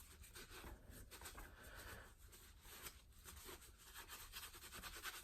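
Faint, irregular rubbing of a rag wiping softened paint off a cast iron vise part.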